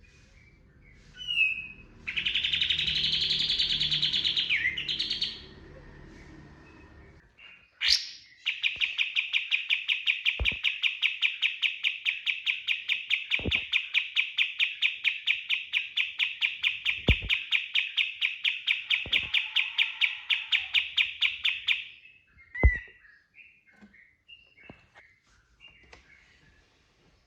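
Kapas tembak songbird singing. A short loud phrase comes about two seconds in, then from about eight seconds a long run of rapid repeated notes, about five a second, that stops abruptly after some thirteen seconds. A few sharp clicks sound in between.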